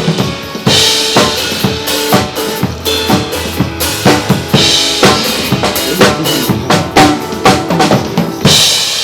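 Drum kit played along to a recorded pop backing track: steady bass drum, snare and rimshot strokes over the song. Near the end comes one big final hit that rings out.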